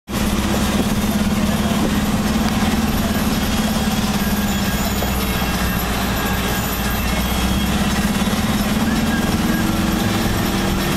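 A vehicle running steadily: a constant low hum under an even, unbroken noise, with a second faint, slightly higher hum joining about nine seconds in.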